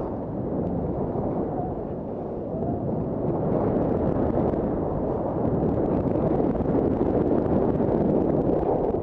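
Wind rushing over the camera microphone during a downhill ski run, a steady low rumble, with the skis scraping and hissing over packed snow.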